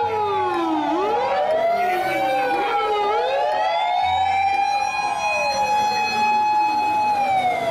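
Sirens of Japanese fire engines heading out on a call: several sirens overlap, wailing slowly down and back up in pitch, and one holds a steady note that falls away near the end.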